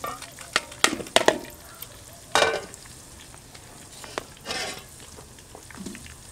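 Aluminium pot lid and basins clanking and scraping as they are handled: a few sharp knocks about a second in, then longer scraping clatters. A steady low sizzle of cooking runs underneath.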